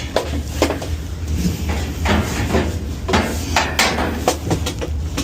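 Irregular knocks and clicks of hard parts being handled in a Samsung top-load washer while its suspension rods are swapped, over a steady low hum.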